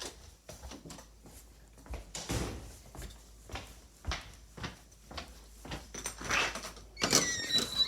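Footsteps walking, about two steps a second, with knocks and rustling. Near the end comes a louder clatter with a short squeak, like a door opening.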